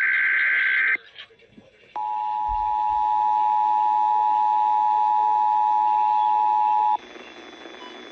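Emergency Alert System tones: a short screeching digital data burst that ends about a second in, then, after a brief gap, the steady two-tone EAS attention signal (about 853 and 960 Hz together) held for about five seconds before cutting off suddenly, leaving faint hiss.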